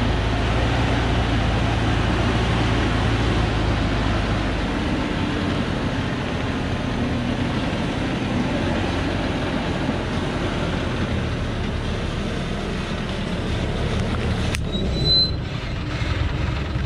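Diesel engine of a loaded log truck running steadily under load as it crawls along a rough dirt track, the deep rumble easing a little after about four seconds. A short high squeak near the end.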